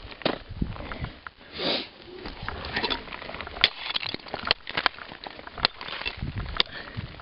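Ice tools and crampon points striking into a frozen icefall during ice climbing: sharp, irregular hits, mostly in the second half, about one a second. A breath is heard about one and a half seconds in.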